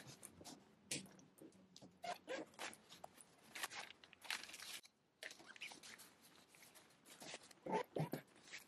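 Fabric and packing bags rustling and crinkling as things are lifted out of an open hard-shell suitcase, with light knocks against the case in an irregular run of short sounds and a brief silent gap about halfway.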